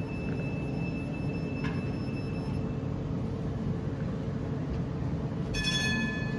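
Sheffield Supertram Class 399 Citylink tram-train standing at the stop, its equipment humming steadily with a faint high whine that dies away about two and a half seconds in. Near the end a single electronic tone sounds for about a second.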